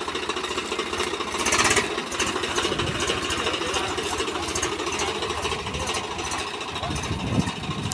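Swaraj 744 FE tractor's three-cylinder diesel engine running steadily as the tractor moves off slowly. A brief loud burst of noise comes about one and a half seconds in.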